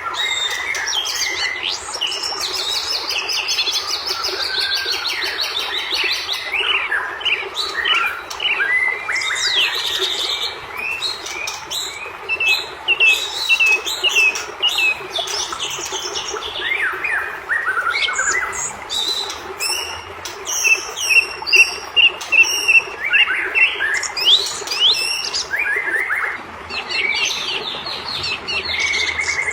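White-rumped shama (murai batu) singing hard and without pause: a long, varied song of clear whistles, rapid trills and sweeping notes, with bursts of sharp ticking calls in the second half.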